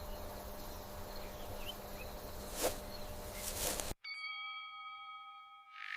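Steady ambient background with a faint hum, cut off abruptly about four seconds in and followed by a chime-like ringing tone that holds for nearly two seconds, then fades.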